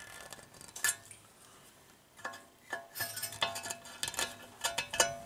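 Side-cutting pliers clicking and scraping on a steel cotter pin in a tie rod end's castle nut as the pin is straightened and worked loose: a run of small metal clinks, a few at first and busier from about two seconds in.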